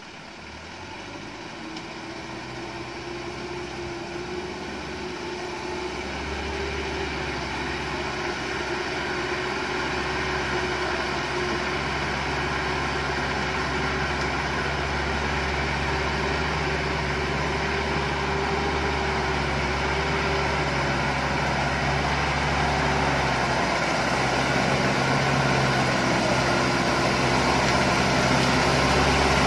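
Loaded Chiến Thắng truck's diesel engine running steadily at low revs as the truck creeps down a muddy slope. It grows gradually louder as it comes closer.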